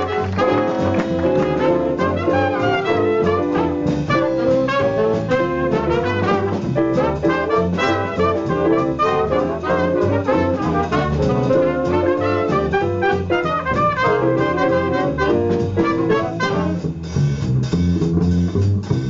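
Live jazz band playing a swing number, with a steady beat under the melody lines. Near the end the melody drops out and the rhythm section carries on alone.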